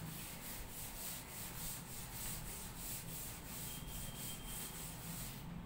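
Chalkboard duster wiping chalk off a blackboard in quick back-and-forth strokes, a repeated dry rubbing hiss that stops near the end.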